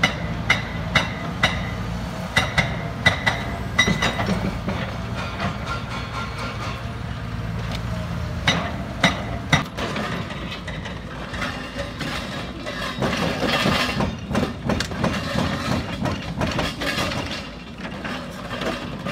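Hydraulic demolition excavators at work on a concrete bridge: diesel engines running under sharp metallic clanks, about two a second for the first few seconds, a few louder knocks about halfway through, then a rougher, noisier clatter.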